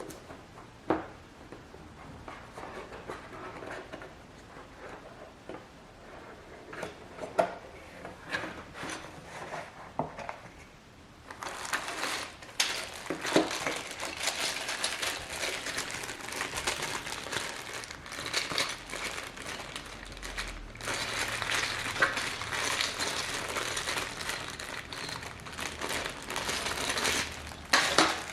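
Plastic packaging being handled: scattered taps and clicks at first, then from about eleven seconds in a steady crinkling of plastic wrap, with a brief pause near twenty seconds.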